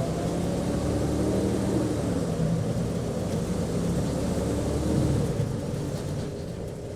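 Bus heard from inside the passenger cabin while under way: a steady low engine drone and road rumble, with the engine's pitch shifting slightly. It grows quieter about six seconds in.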